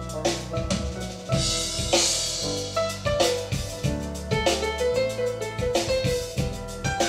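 Instrumental jazz music with a busy drum kit playing a steady beat, held bass notes and a pitched melody line, with a cymbal wash about two seconds in, played back through hi-fi loudspeakers.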